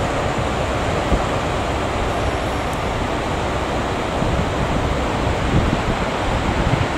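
Steady rushing noise of wind buffeting the microphone, with the low rumble of a Great Western Railway Class 43 HST power car approaching slowly underneath.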